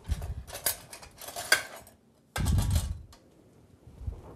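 Kitchen utensils and metal ware clinking and clattering as they are rummaged through in search of a spatula. A louder dull knock comes about two and a half seconds in.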